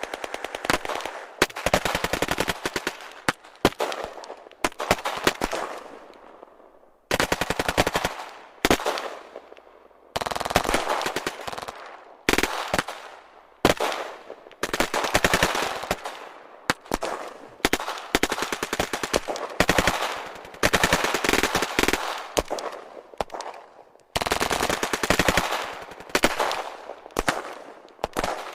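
War sound effect of machine-gun fire: repeated bursts of rapid shots, each burst fading into an echoing tail before the next one starts.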